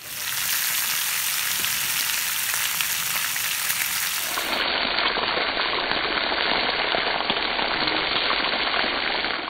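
Strips of bacon sizzling in a cast-iron skillet: a steady, dense crackle of spitting fat.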